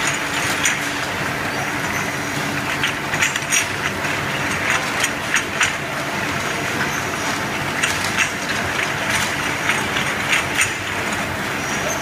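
Glass bottles clinking against one another in short, irregular knocks as they ride a stainless-steel chain conveyor into a bottle washing machine, over the steady running noise of the machinery.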